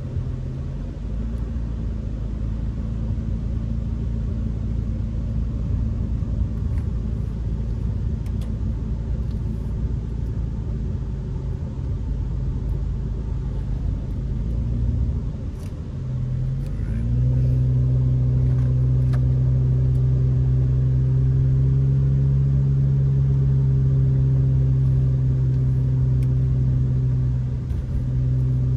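Car driving on a wet road, heard from inside the cabin: steady engine and tyre rumble. About two-thirds of the way through it grows louder, with a steady engine hum.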